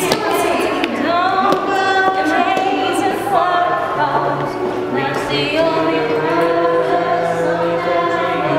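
A small group of voices, women's among them, singing together a cappella, with sustained notes and no instruments.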